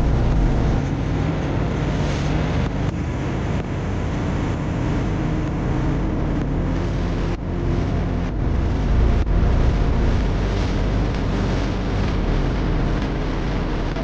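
Steady rumble of a vehicle driving along a rough road, with wind rushing over the microphone; a heavy truck is running close alongside at the start.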